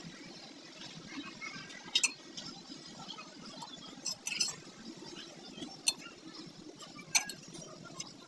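Metal tools and parts clinking, with about five sharp clinks spread over several seconds above a steady low background noise.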